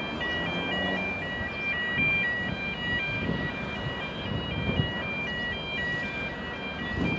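An electronic warning beeper sounding a rapid repeating pattern of short, high beeps on three pitches, over a low rumble of engines.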